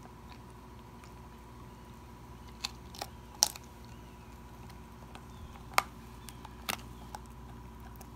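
A dog chewing a raw venison rib, with several sharp crunches of bone, the loudest about three and a half seconds in and again near six seconds.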